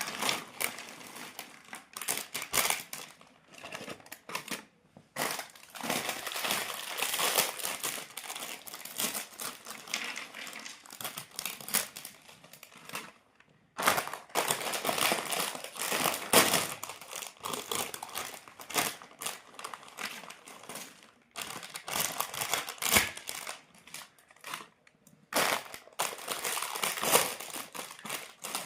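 Crinkling of Lay's crisp packets and close-up crunching of crisps, in long stretches broken by short pauses.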